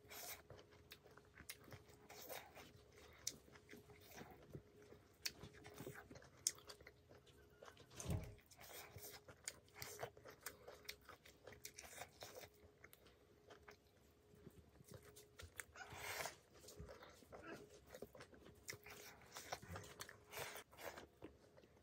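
Faint, close-miked chewing of a hand-eaten meal of rice and pork, with many short mouth clicks. There is a faint steady hum underneath and one dull thump about eight seconds in.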